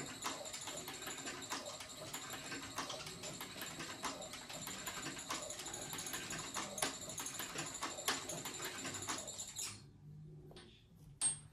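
CB-4500 leather harness stitcher sewing through a leather strap, its needle mechanism clacking with a steady high whine from the motor. It stops abruptly about ten seconds in, followed by a single click.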